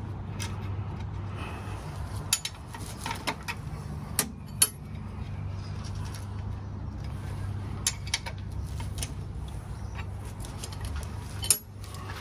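Steel combination wrench clinking against bolt heads and a steel clamp plate as bolts are snugged down to draw cylinder liners into a diesel tractor block: a string of scattered sharp metallic clinks, the loudest about four and a half seconds in and near the end, over a steady low hum.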